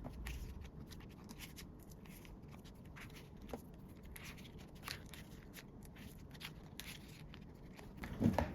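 Faint rustling and light clicks of photocards and plastic binder sleeves being handled, with a soft thump near the end.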